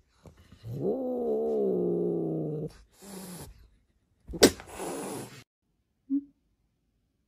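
Grey Scottish Fold cat letting out one long grumbling yowl of about two seconds, rising at the start and then wavering. It is followed by a few short noisy huffs and a click, and the sound stops abruptly about five and a half seconds in.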